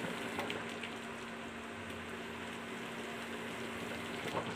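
Pot of chicken broth with vegetables simmering, a steady bubbling hiss as it cooks until tender, over a low steady hum, with a few light ticks.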